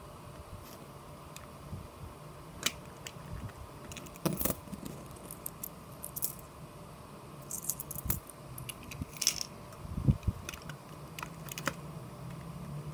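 Plastic Lego bricks clicking and knocking as a Lego combination safe is handled and opened, with small metal objects jingling. Irregular sharp clicks, loudest about four, eight and ten seconds in.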